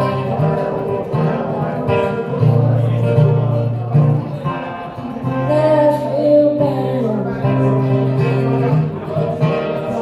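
Acoustic guitar strummed in a steady country-style rhythm, with a sung note wavering about halfway through.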